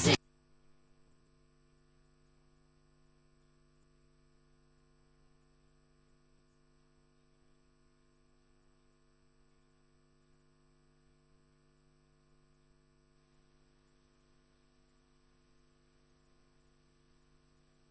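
Music cuts off at the very start, leaving a faint, steady electrical mains hum made of several unchanging low tones, with a thin high whine above it.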